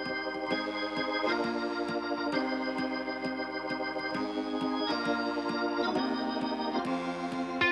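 Background music of held keyboard chords that change about once a second.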